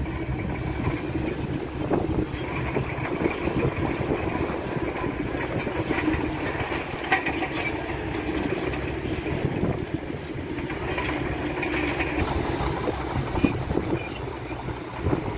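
Diesel engine of heavy earthmoving machinery running steadily, with scattered knocks and rattles.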